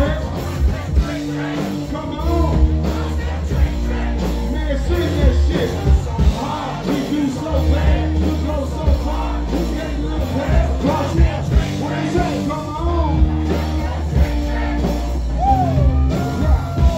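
Male rap vocals performed live into a handheld microphone over loud music with a heavy, steady bass beat.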